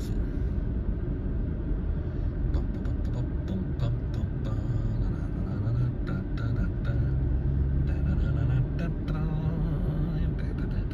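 Steady low rumble of a car's engine and tyres heard from inside the cabin while driving along a city street.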